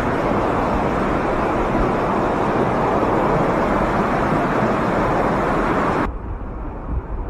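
Vehicle on the move with a steady, loud rushing noise, cutting off abruptly about six seconds in to a quieter low rumble.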